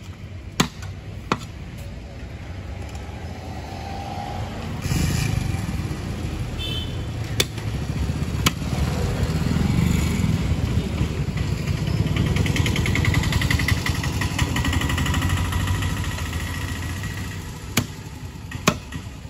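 Sharp chops of a large knife into a big catla fish on a wooden log block: two near the start, two in the middle and two near the end. Between them a motorcycle engine runs nearby, swelling from about five seconds in and fading out shortly before the last chops.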